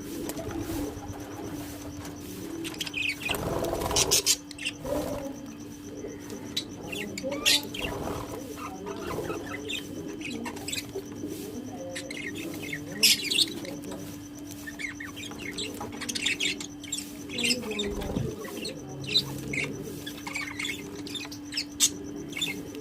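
Parrots chirping and calling in short, scattered high notes, over a steady low hum.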